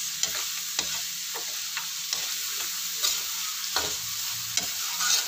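Pork, carrots and cabbage sizzling in a hot wok as they are sautéed, with a spatula stirring them and scraping against the pan at irregular moments.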